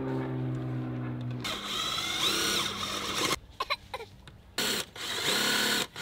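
Cordless drill/driver driving screws to fix an outlet box to the wall. A steady motor run sags slightly in pitch under load, then a noisier, higher-whining run follows. After a pause come several short bursts as the screws are snugged down.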